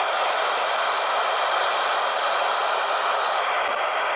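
A steady, even hiss that starts abruptly just before and holds level throughout, with no hammer blows standing out.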